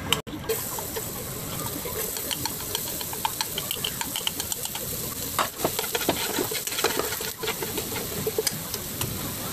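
Minced garlic frying in hot oil in a nonstick pan: a steady sizzle with many small crackles and pops.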